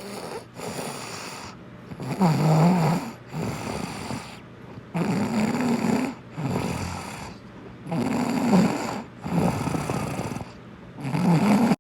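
A child snoring in his sleep: a loud, rasping snore with a low buzz about every three seconds, each followed by a softer, breathier breath.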